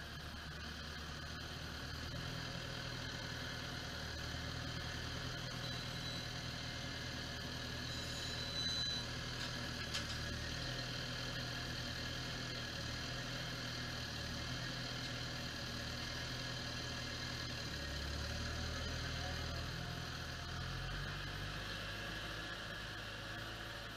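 Deutz-Fahr farm tractor's diesel engine running steadily at low revs while the tractor manoeuvres with its front loader, its note shifting and swelling slightly about eighteen seconds in. A single sharp click about ten seconds in.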